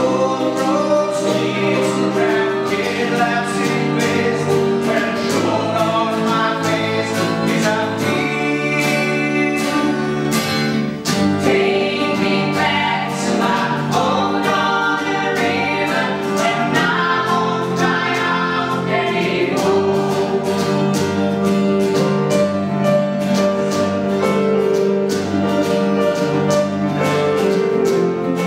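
Two women singing together live, with a strummed acoustic guitar backing them.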